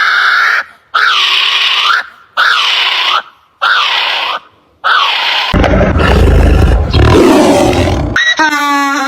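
An animal calling: five short, hoarse calls in a row, each under a second. These are followed by a loud, deep roar lasting nearly three seconds.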